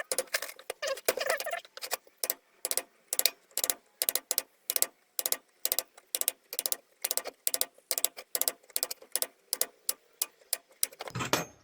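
Rapid, even metallic taps, about three a second, knocking the nut that holds a bench grinder's stone on its spindle to loosen it.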